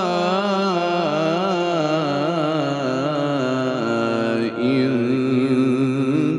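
A man's solo Quran recitation in the melodic tajweed style: one long held phrase that wavers up and down in ornamented turns. About four and a half seconds in there is a brief break, and the voice resumes on a lower note.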